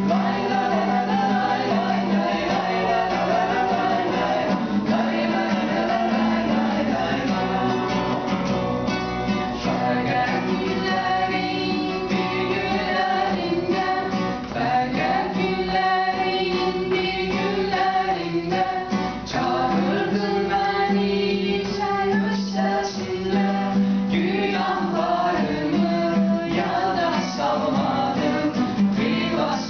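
Small group singing together, a man's and several women's voices, to an acoustic guitar accompaniment.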